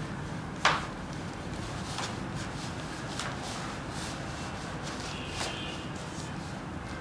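Projection screen fabric and its border strip being pulled and fitted onto the screen's frame by hand: one sharp snap about a second in, then a few lighter clicks and rustles over a steady low background noise.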